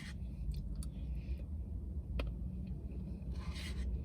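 A spoon clicking a few times and scraping once in a Blizzard cup of soft-serve, over a steady low rumble.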